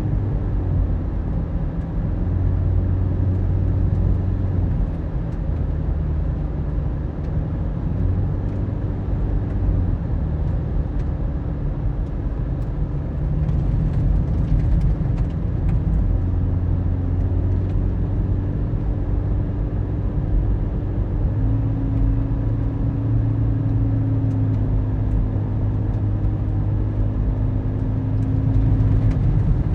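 Car engine and tyre noise heard from inside the cabin while driving, a steady low hum whose engine note shifts in pitch a few times with changes in speed.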